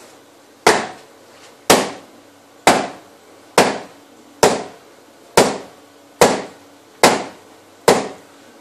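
A shoe holding a wine bottle being banged heel-first against a wall, nine hard knocks about one a second, each dying away quickly. The blows drive the wine's cork gradually out of the neck.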